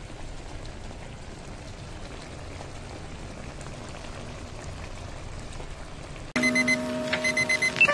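Beef and broccoli in thick brown sauce simmering in a wok, a steady soft bubbling and crackling. About six seconds in, louder intro music begins over it.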